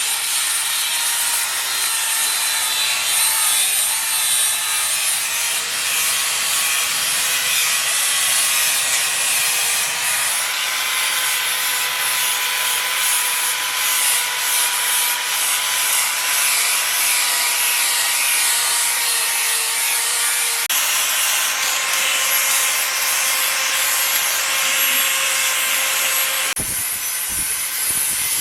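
An electric hand grinder runs steadily with a motor whine while it scours the metal parts, cleaning them ahead of an epoxy primer coat.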